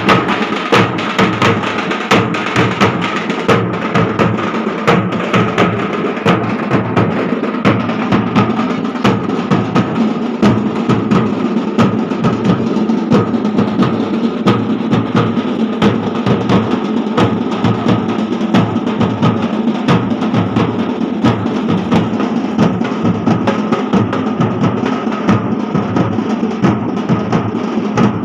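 Loud drumming in a fast, steady rhythm for dancing, with a held high note sounding beneath the drums.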